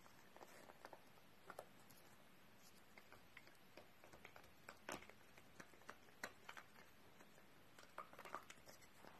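A small dog gnawing a long dried chew stick: faint, irregular crunches and clicks as her teeth work the chew.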